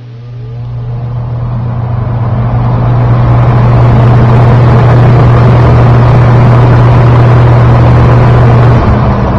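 Lakewood P-222 box fan starting up on high speed, heard from right behind its motor. A steady electric-motor hum sits under a rush of air that builds over the first three seconds as the blades spin up, then holds steady and loud.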